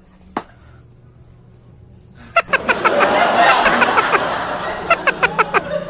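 People laughing, breaking out about two seconds in after a quiet stretch, with quick runs of sharp claps among the laughter.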